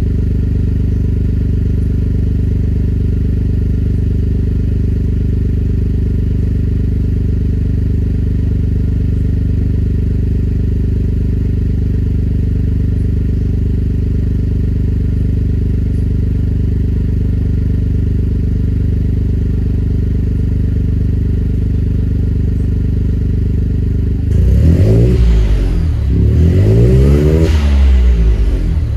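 Engine idling steadily after a cold start, then revved twice near the end, its pitch rising and falling each time.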